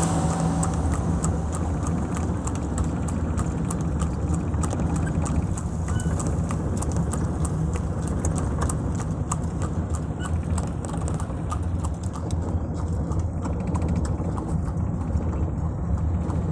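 Horse pulling a cart, its hooves clip-clopping in a long, continuous run of sharp strikes over a steady low rumble.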